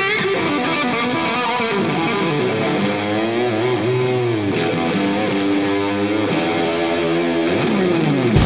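Distorted electric guitar playing a lead line, its notes bent and sliding in pitch, with a long downward slide near the end.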